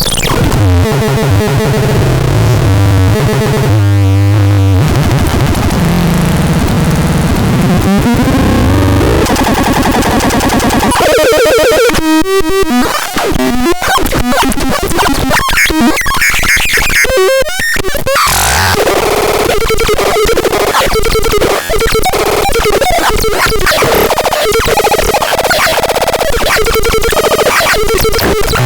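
Harsh electronic noise from a synthesizer: dense, distorted textures that keep shifting, with sweeping pitches and stuttering, chopped passages over a steady low drone in the second half.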